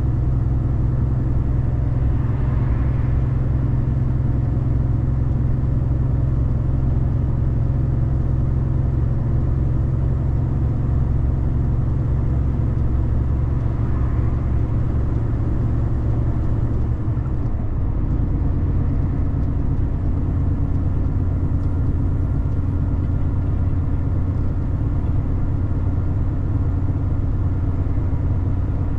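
Car driving on the road: steady engine and tyre noise. The engine note shifts about two-thirds of the way through.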